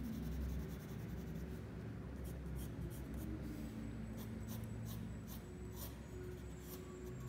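A 3B graphite pencil scratching on paper in many quick, short strokes as strands of hair are sketched.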